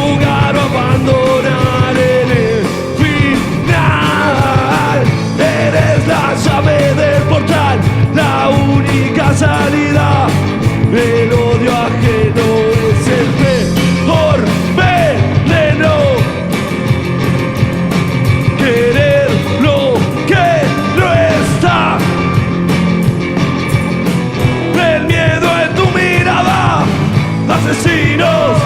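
A rock band playing live with dense, loud music throughout and no lyrics, while a lead melody keeps sliding up and down in pitch.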